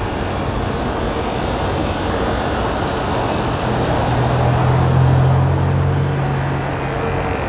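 Street traffic heard from a moving bicycle: a steady rush of road noise, with a car engine's low hum growing louder about halfway through as cars pass close by.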